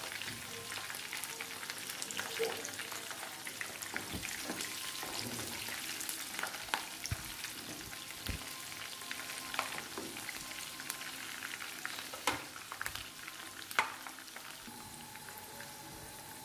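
Chopped garlic, whole dried red chillies, slit green chillies and cumin seeds sizzling and crackling in hot oil in a frying pan, being stirred with a spatula, with a few sharp knocks against the pan. This is a tadka (tempering) frying until the garlic turns light golden.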